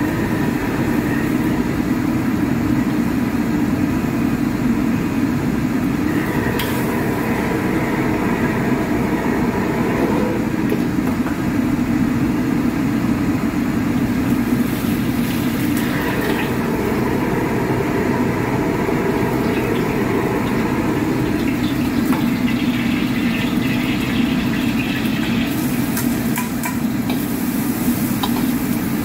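Commercial gas wok burner running on high with a steady low roar. Near the end, garlic, shallots and chili hit the hot oil and sizzle, with a few clicks of the ladle against the wok.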